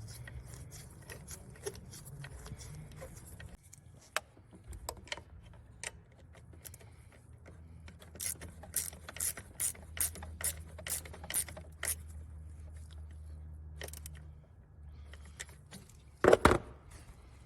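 Ratchet wrench clicking as it tightens the 10 mm bolt holding a canister purge valve, with a run of clicks about two a second in the middle of the stretch. A single loud knock near the end.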